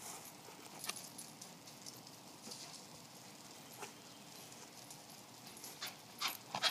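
Miniature schnauzer running over grass toward the microphone: mostly faint, with a few soft light taps, then a quick patter of louder taps near the end as it comes close.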